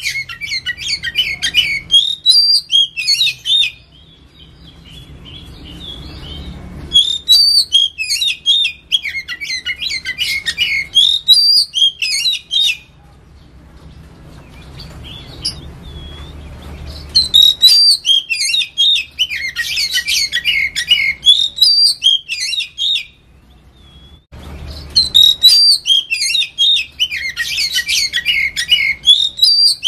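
Oriental magpie-robin singing in four bouts of a few seconds each: rapid, varied chattering and whistled notes with short pauses between bouts.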